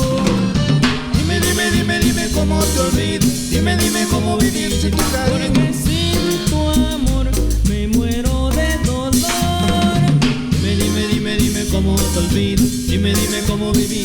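A band playing cumbia: an instrumental passage with drum kit, bass and melody instruments over a steady dance beat, without singing.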